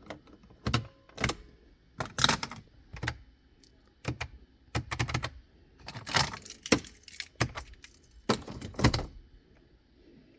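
Car starter clicking and clunking over and over, about a dozen irregular sharp strikes, as it tries to engage against an engine that won't rotate past a tight spot.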